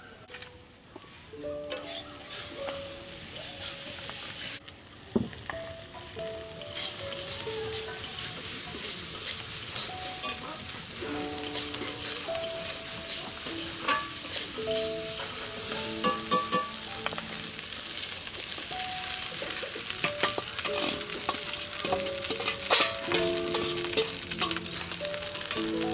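Onions, peanuts and chillies sizzling in oil in a steel karahi, stirred with a metal spatula that ticks and scrapes against the pan. It gets louder about a quarter of the way in, and cooked rice is tipped into the pan near the end. A light instrumental melody plays underneath.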